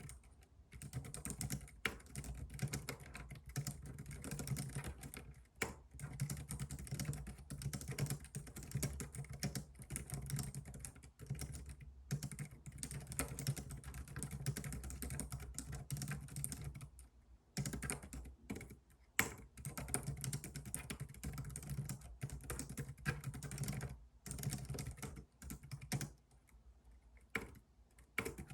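Typing on a computer keyboard: a fast, continuous run of key clicks, broken by a few short pauses in the second half.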